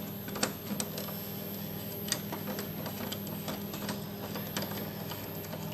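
Hand screwdriver turning a screw out of a Xerox copier's frame: scattered small clicks and ticks over a steady low hum.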